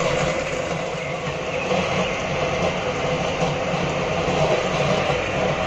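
Electric countertop blender running steadily, its motor humming as it churns cold water and jaggery in the jar.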